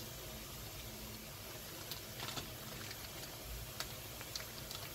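Food sizzling faintly on a flat-top electric griddle: a low, steady hiss with a few small crackles, a cluster about two seconds in and more near the end.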